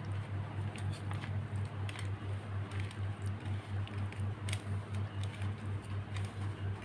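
A hand mixing dry spice powders and flour with a little curd in a glass bowl: soft, scattered ticks and rustles. Under it runs a low hum that pulses several times a second, the loudest sound.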